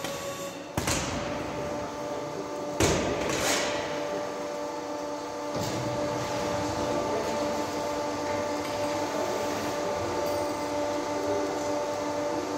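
Automatic silage bagging machine at work: a few sharp knocks and clanks in the first few seconds as the filled bag is pushed out and the mechanism moves, then the machine runs on with a steady motor hum and whine.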